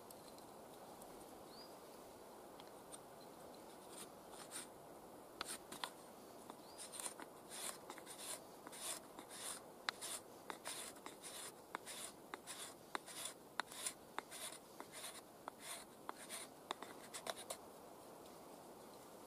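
Fallkniven Idun knife shaving curls off a split stick of suspected fatwood to make feather sticks: a run of short scraping strokes, about two a second, that starts a few seconds in and stops shortly before the end.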